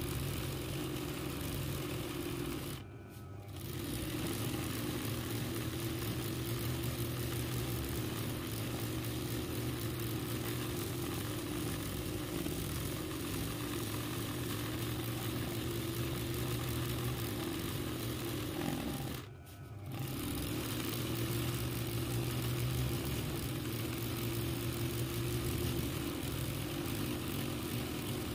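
RANEW 130 zigzag embroidery machine running steadily as it stitches free-motion embroidery, with a continuous motor hum. The sound cuts out briefly twice, about three seconds in and again near twenty seconds.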